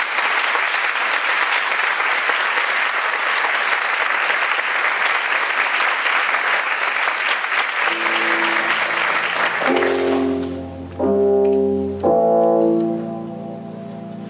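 Audience applauding. About eight seconds in, music starts under the clapping with sustained low chords, and the applause dies away soon after. Two loud chords strike about a second apart near the end, then ring on more quietly.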